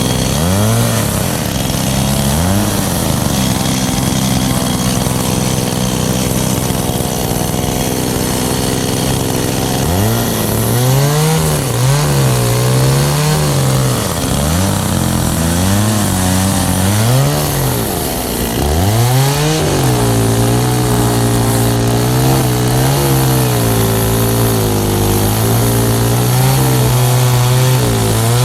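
Kyoritsu two-stroke chainsaw revved up and down several times, then held at a steady high speed through the second half, as when cutting wood.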